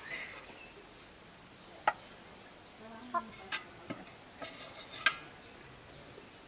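A metal spoon clinking and scraping against an aluminium cooking pot a few times while fried fish pieces are lifted out, with chickens clucking now and then.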